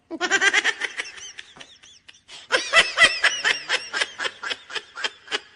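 Laughter: a rapid run of high-pitched laughing pulses that fades out, then after a short pause a second, louder run of laughing.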